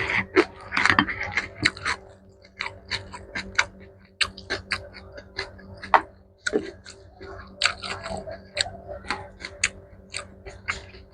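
Close-miked chewing and mouth sounds of a person eating mixed rice with kimchi and pickled mustard greens: quick, irregular wet clicks and crunches, several a second.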